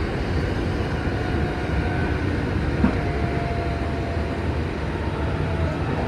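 Commuter train running, heard from inside the car: a steady rumble from wheels and running gear, with a faint steady whine in the middle and a single sharp click near the halfway point.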